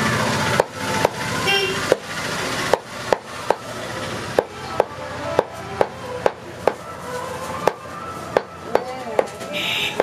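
Cleaver chopping goat meat on a wooden log chopping block: a steady run of sharp chops, about two a second, starting just after the beginning, each with a short ring from the blade.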